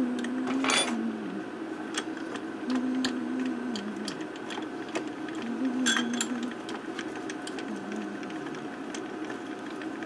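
Harbor Freight 44991 mini mill table being cranked back and forth by its handwheel: the leadscrew and table slide run with a string of ticks and clicks. A low whirring tone comes and goes in stretches of about a second, four times.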